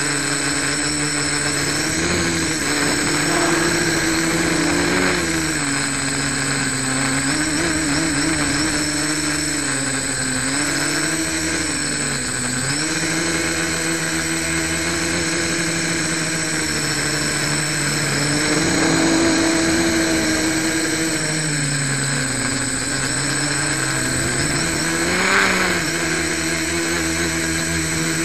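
Home-built quadcopter's electric motors and propellers whining in flight, heard from its onboard camera. The pitch rises and falls again and again with the throttle, with a sharp swell near the end. The propellers are not yet balanced.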